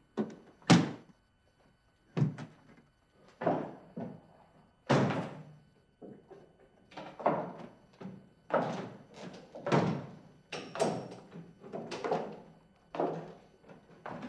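Repeated thuds of a hard-shell suitcase being shut and then bumped down a staircase one step at a time, about one thump a second.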